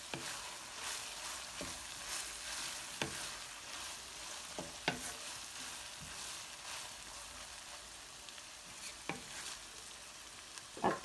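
Minced dulet meats frying in a pan with a steady sizzle, while a spoon stirs through them and knocks against the pan now and then.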